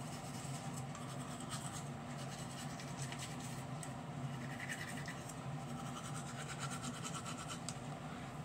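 Manual toothbrush scrubbing teeth with toothpaste: quick, scratchy brushing strokes close to the microphone, over a low steady hum.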